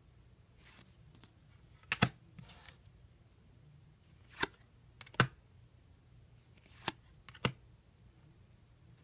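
Trading cards being handled and set down: soft slides of card stock with about five sharp taps as cards meet the table, the first tap about two seconds in the loudest.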